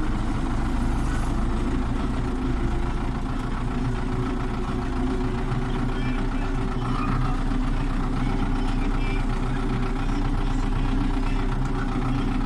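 Belarus tractor's diesel engine running steadily, heard from inside the cab.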